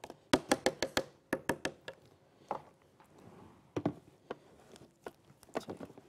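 A spoon knocking and scraping against the inside of a blender jar while stirring thick cocoa cake batter down toward the blades. A quick run of sharp taps comes in the first two seconds, then scattered knocks as the jar is handled and set back on the blender base.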